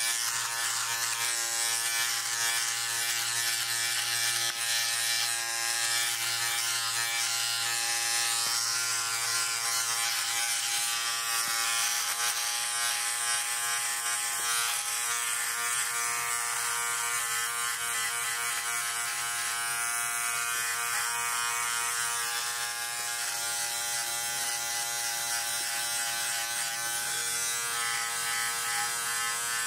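Philips OneBlade electric trimmer-shaver running steadily as it is drawn over the face, shaving stubble: a continuous buzzing hum with a hiss over it.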